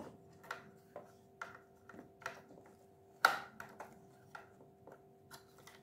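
Hollow plastic Hasbro Mega Mighties Hulkbuster figure being handled, its parts giving scattered light clicks and taps, with one sharper knock about three seconds in. A faint steady hum lies underneath.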